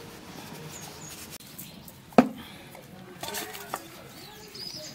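Snakehead fish being rubbed with spice powder by hand in a stainless steel bowl: one sharp metallic knock against the bowl a little past two seconds in, then a few soft clicks and rustles of handling.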